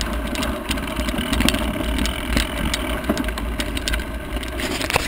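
Mountain bike rolling over a rocky dirt singletrack: the bike rattles and clicks constantly over the rough ground, over a steady low rumble.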